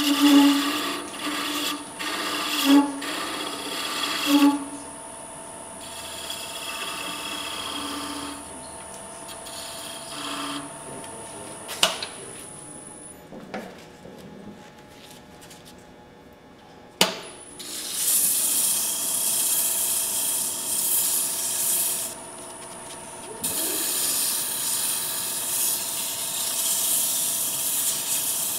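Wood lathe with a turning tool cutting a small spinning wooden bell in short strokes for the first few seconds. Two sharp clicks follow in a quieter stretch. From about two-thirds in, sandpaper is held against the spinning wood, a steady hiss that pauses briefly once.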